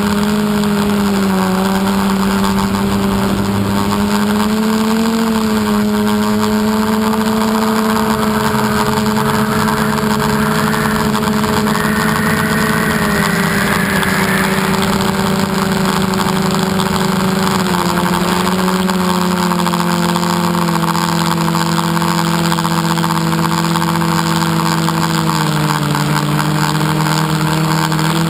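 Electric motors and propellers of a multirotor drone humming steadily in flight, heard from its onboard camera with a rush of air noise. The pitch drifts slowly, stepping down a little about two-thirds of the way through and again near the end.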